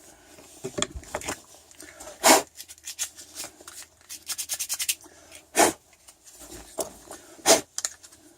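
Hands handling and rubbing the pieces of a camera holder on a bench: irregular scraping and rubbing with several sharp knocks, and a quick run of clicks about halfway through.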